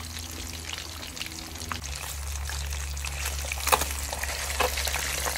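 Liquid poured into a hot cooking pan, with a steady low hum beneath. Sizzling crackles grow thicker and louder over the second half.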